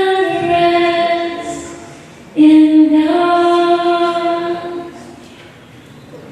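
A woman singing a slow worship song unaccompanied, holding two long notes: the first steps down in pitch, the second steps slightly up, then the voice fades away.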